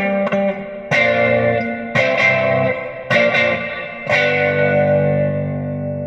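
Electric guitar through a VOX VT40X modelling amp: five chords struck about a second apart, the last one left ringing and slowly fading.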